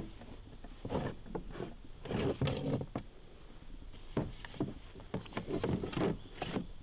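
Irregular wooden knocks and clunks with rustling, as a wooden paddle and packed gear are shifted around inside an Old Town canoe.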